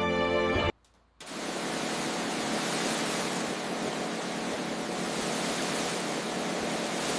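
Background music that breaks off under a second in; after a brief gap, a steady, loud hissing noise starts and keeps going.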